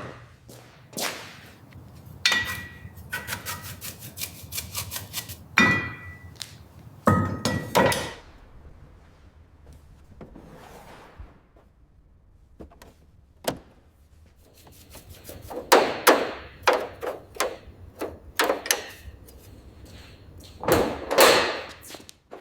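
Hand tools knocking and clanking on metal, a string of quick taps, several with a short ringing ding, and a louder scraping clatter near the end.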